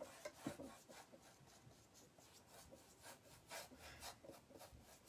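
Faint, scratchy strokes of a paintbrush loaded with watered-down paint rubbing across rough wood pallet boards, a few separate strokes with the clearest about three and a half seconds in.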